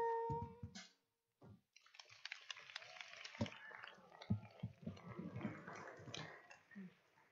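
The last held sung note of a children's duet ends within the first second. After a short silence, an audience applauds with a patter of many claps for about five seconds, fading near the end.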